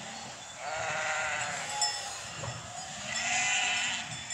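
A large flock of sheep bleating: two long, wavering bleats stand out, one starting about half a second in and another about three seconds in, with a short call between them.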